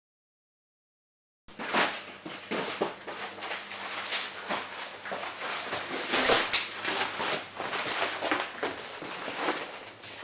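Cardboard packaging being rustled, scraped and knocked about, an irregular run of crackles and taps that starts after about a second and a half of silence.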